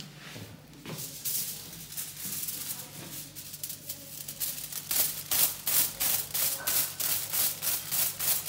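Quick, scratchy strokes through hair, about three or four a second, growing louder and more regular about five seconds in.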